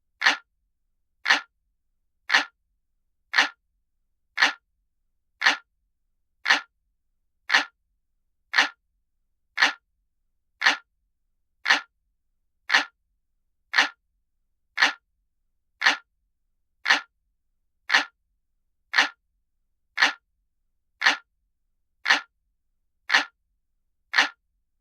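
Clock ticking, one sharp tick about once a second, evenly spaced with silence between the ticks.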